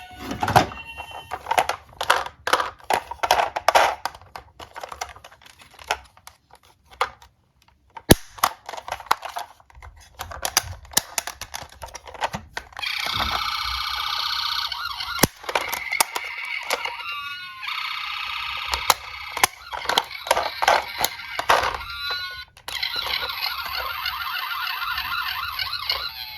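Small diecast toy cars clicking and clattering as they are handled and rolled. About halfway through, a siren starts sounding in long stretches with short breaks, with a few more clicks of the toys over it.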